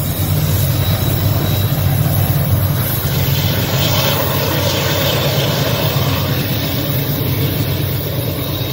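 Union Pacific diesel freight locomotives running steadily with a low engine hum, a train moving through the tunnel mouth.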